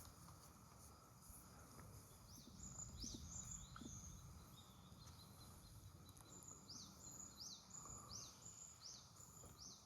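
Faint high-pitched bird calls, a quick downward-sliding whistle repeated about twice a second, starting a couple of seconds in. Beneath them is a low steady rumble of background noise.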